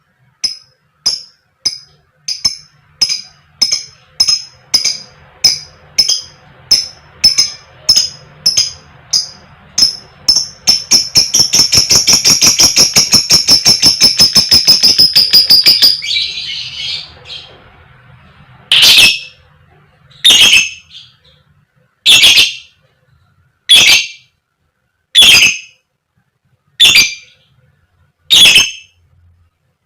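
Lovebird giving its repeated 'koek koek' call, the call used to set other lovebirds singing. It starts as sharp chirps about two a second, speeds into a fast run of calls that trails off, then gives louder single calls about every second and a half.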